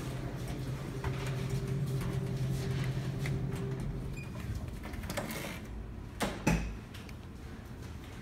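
A steady low hum that fades out a little after four seconds, then two sharp thumps about a third of a second apart, the second the louder.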